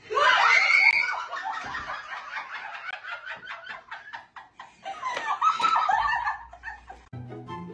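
A woman's sudden frightened scream, then high-pitched cackling laughter in quick pulses, with another shriek about five seconds in.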